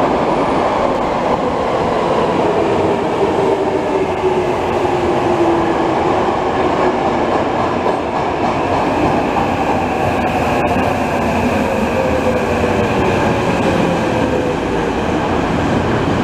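Tokyo Metro subway train pulling into an underground station and braking along the platform. Its wheels rumble and clatter on the rails, and a whine falls in pitch as the train slows, a second falling whine starting about halfway through.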